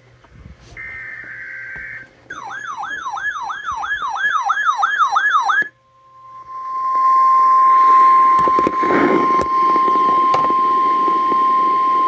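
RadioShack NOAA weather radio sounding an alert: a short burst of the alert's digital data tones, then the radio's own warbling alarm sweeping up and down about three times a second, then the steady 1050 Hz weather warning tone over radio static, with a few knocks partway through.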